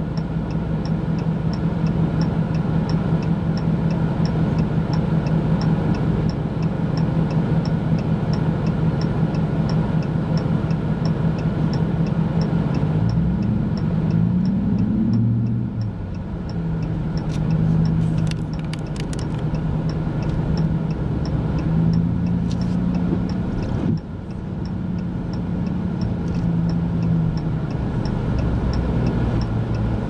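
A vehicle engine idling steadily, with a hazard-light flasher ticking evenly about twice a second. About halfway through, a second engine note rises and falls, like a vehicle going past.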